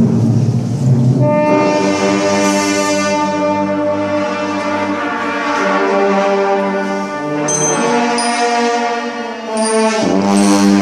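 Brass band playing a slow Holy Week funeral march in long held chords, with new chords entering about a second and a half in, again past the middle, and near the end.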